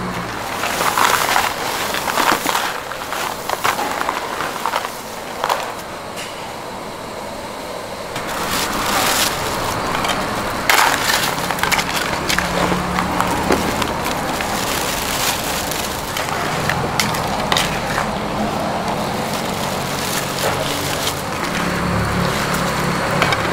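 Food-stall prep clatter: irregular knocks, clicks and scraping of utensils and cookware over a steady background hiss, with a faint low hum in the second half.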